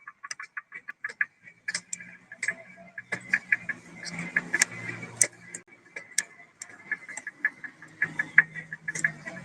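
Short, irregular clicks and ticks, quick and close together in the first second, with a faint low hum underneath from about two seconds in.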